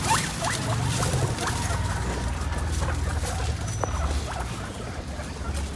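Skinny pigs (hairless guinea pigs) giving several short squeaks as they move through straw and fresh-cut grass, with the rustle of the bedding and grass.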